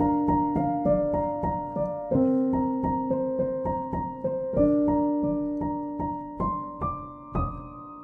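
Background piano music: a melody of single notes, about two a second, over held lower notes.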